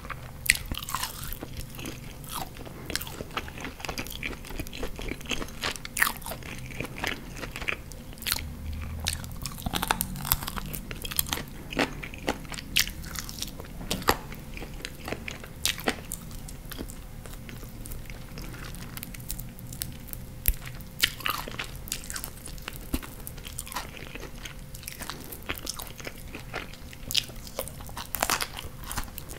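Close-miked chewing and biting of chicken wings: a steady, irregular run of crisp crunches and sharp wet clicks.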